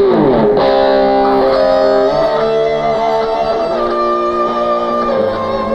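Electric guitar playing, opening with a loud chord and moving on through sustained notes and chords that change every second or so.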